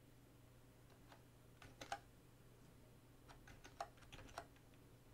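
A few faint computer keyboard keystrokes in two short clusters, over a steady low hum.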